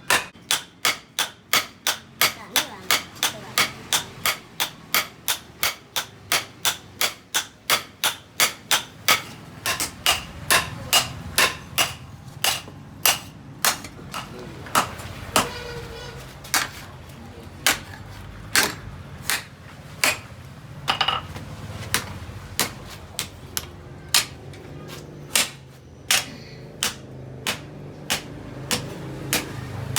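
Hammer blows on steel during forging. The blows come in a steady run of about two to three a second, then become slower and less regular after about ten seconds.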